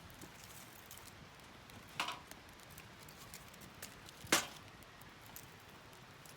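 Two sharp knocks a little over two seconds apart, with a few faint ticks, over a low steady background hiss.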